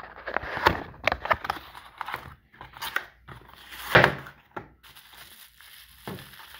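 Handling of a small cardboard box and bubble wrap: cardboard rustling and scraping and bubble wrap crinkling as a bubble-wrapped laptop power supply is shaken out of its box onto a wooden desk. The loudest moment is a thud with rustling about four seconds in, as the wrapped power supply comes out onto the desk. After about five seconds it turns to faint crinkling.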